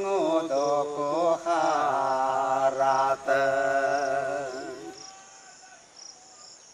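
A man singing a slow, wavering tune in long held notes, which fades out about five seconds in. Crickets chirp faintly throughout.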